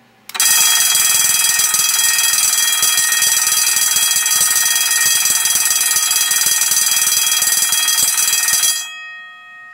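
Electric fire alarm bell ringing loudly and continuously, its clapper striking the gong rapidly, set off by a small alarm clock reaching its alarm time through a circuit board. It starts abruptly just after the start, rings for about eight and a half seconds, then stops, leaving a brief fading ring.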